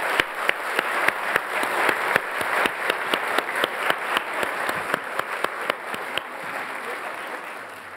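Large seated audience applauding, a dense spread of hand claps that fades away over the last two seconds or so.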